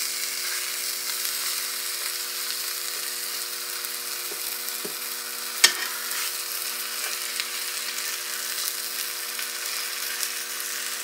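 Breaded chicken cutlets sizzling in butter in an electric skillet, with a steady low hum underneath. A sharp clack of a utensil against the pan comes about five and a half seconds in, with a couple of softer knocks just before it, as the pieces are flipped.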